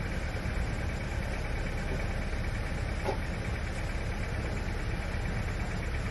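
Vehicle engine idling: a steady low rumble.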